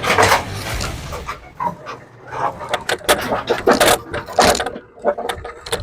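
Self-propelled Cub Cadet walk-behind mower being rolled along, its wheels and drive parts clattering and knocking irregularly.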